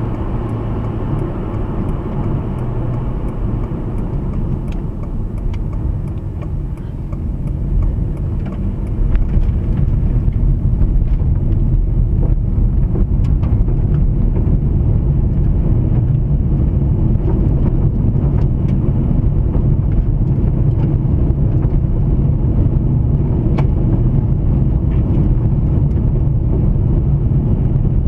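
Car driving, with steady road and engine noise heard from inside the cabin; it grows louder about eight seconds in and holds there.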